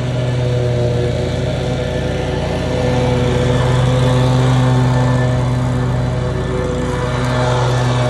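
Walk-behind lawn mower's small engine running steadily under mowing load, getting louder and quieter as the mower moves closer and farther away.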